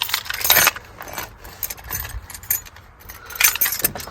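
Keys jangling and clinking in irregular bursts, loudest at the start and again near the end.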